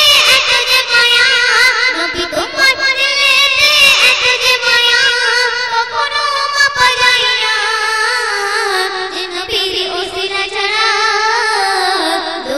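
A girl singing a Bengali devotional song with a wavering, ornamented melody over instrumental accompaniment with drum strokes.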